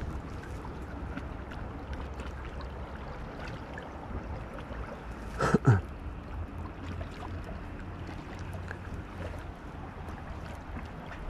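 Wind buffeting the microphone over choppy lake water that is lapping steadily. About five and a half seconds in, a brief loud sound slides down in pitch.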